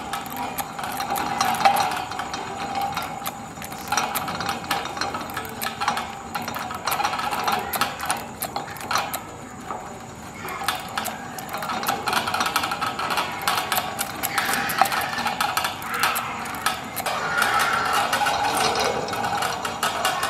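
A hand-pedalled bicycle crank driving a rusty roller chain into an angle grinder's gear head, which spins a propeller. The chain and gears run with a dense clattering over a steady whir, somewhat louder in the second half.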